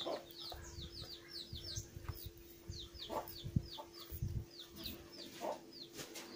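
Chickens: a steady run of short, high, falling chirps, several a second, with a few lower clucks now and then. There is a low thump about three and a half seconds in.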